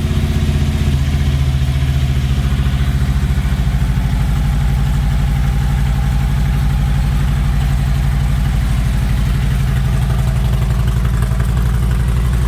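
Harley-Davidson V-twin motorcycle engine idling steadily just after being started, a low, even running beat that settles slightly a couple of seconds in.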